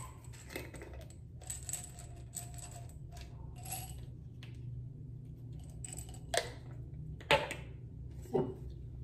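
Supplement bottles being handled: a run of small rattles and clicks in the first few seconds as capsules shift inside and a jar's cap is worked, then three sharper knocks later on. A steady low hum runs underneath.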